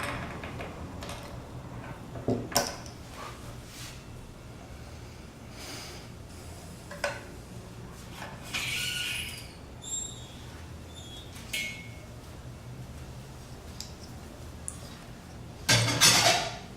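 Hard metal and plastic parts being handled: scattered clicks and knocks, a short scrape about halfway through, and the loudest clatter near the end.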